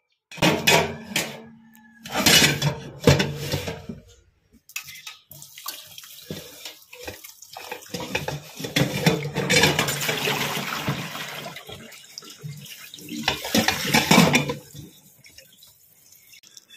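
Tap water running into an aluminium pressure-cooker pot and splashing over a whole coconut that has just been pressure-cooked. The flow swells and drops back several times.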